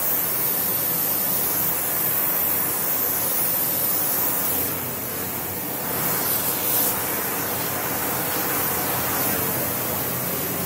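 Gas heating torch burning with a steady hiss as its flame is played over an aluminum bar to heat it.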